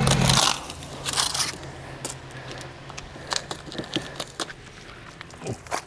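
Scattered small crackles and clicks of handling and rustling over a faint low hum, with a brief rush of noise at the start.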